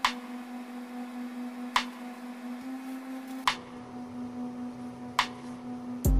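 A steady low hum with four sharp clicks spaced about 1.7 seconds apart; loud music cuts in suddenly at the very end.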